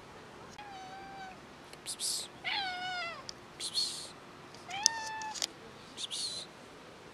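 Stray cat meowing three times, about two seconds apart, with short hissing rustles between the meows.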